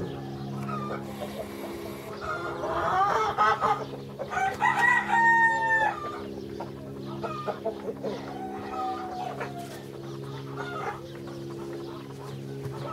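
Domestic chickens clucking, with a rooster crowing once about five seconds in, over a steady low hum.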